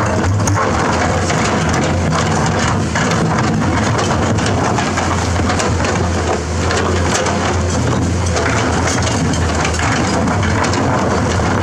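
Komatsu PC210-10 excavator's steel bucket scraping and digging through wet riverbed gravel and boulders, stones grinding and clattering throughout, over the steady low hum of its diesel engine.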